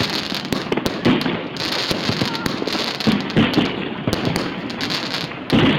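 Aerial fireworks crackling: a dense, continuous rattle of many small pops from crackling stars, with a louder cluster of bangs near the end.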